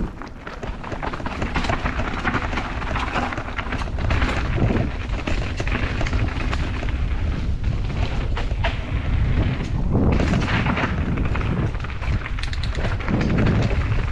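Mountain bike riding fast down a dirt trail: a continuous low rumble of wind buffeting the microphone and tyres over rough ground, with scattered rattles and knocks from the bike, growing louder in the first couple of seconds.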